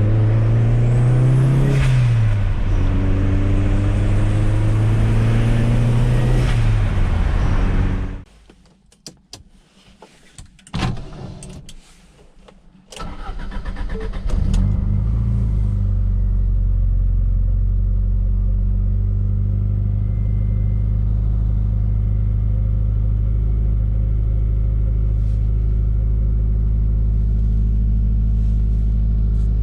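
Fiat Coupe 16V Turbo's turbocharged four-cylinder engine running with one brief rev, then stopping; a few clicks sound in the quiet before the engine is started again about 13 seconds in and settles into a steady idle.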